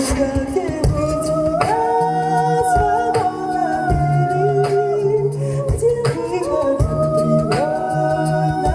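An a cappella vocal ensemble singing in close harmony, holding chords that shift every second or two over a sung bass line, with short sharp percussive hits about once a second.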